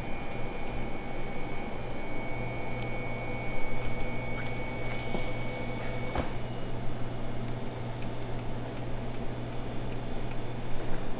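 Steady mechanical hum, with a faint high tone that stops about six seconds in and a few light clicks and taps.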